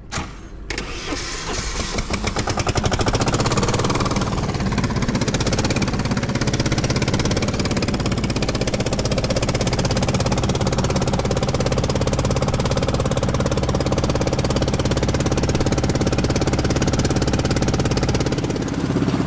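An engine is started about half a second in, builds up over the first few seconds and then runs steadily with an even, rhythmic beat, changing near the end.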